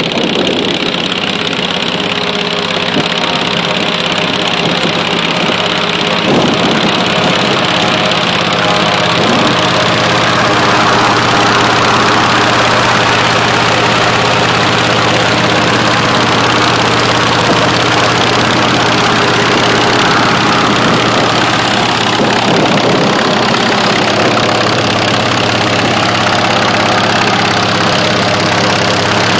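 Harley-Davidson V-twin engine running on a propeller test stand, driving a spinning propeller. Its speed picks up about six seconds in and then holds steady.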